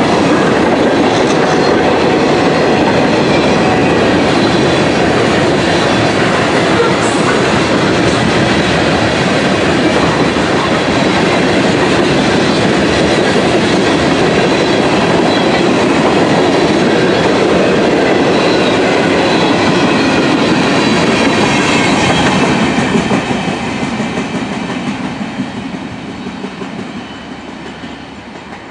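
Freight train of covered hoppers and tank cars rolling past at close range, a loud, steady noise of the cars on the rails that fades away over the last five seconds or so.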